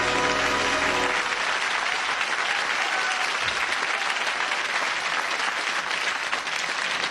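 Studio audience applauding a performer's entrance, with walk-on music that stops about a second in.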